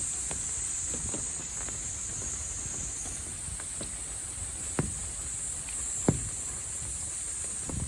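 A steady high-pitched insect chorus, with scattered short taps and knocks over a low rumble; the two loudest taps come about five and six seconds in.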